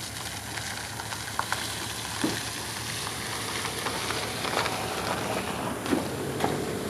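Outdoor wet-forest ambience: a steady hiss with scattered ticks and a few short, faint calls.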